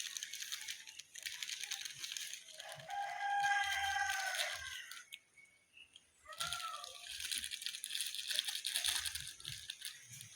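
Rooster crowing: one long call about three seconds in and a shorter call a few seconds later, over a high hiss.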